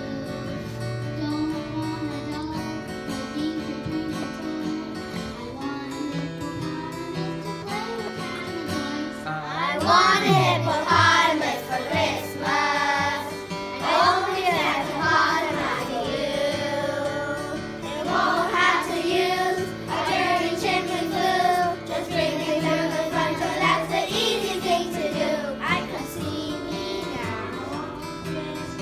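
A group of young children singing together over an instrumental accompaniment. The accompaniment plays alone at first, and the children's voices come in about nine seconds in.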